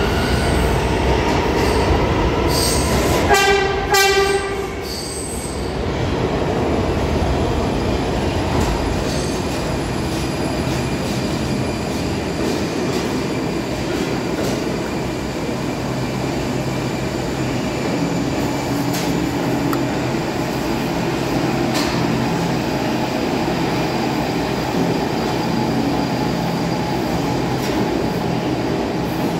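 R46 subway train entering the station: a rising whine, then two short horn blasts about three seconds in. After that come the steady rumble of wheels and motors and faint wheel squeal as the cars roll slowly along the platform.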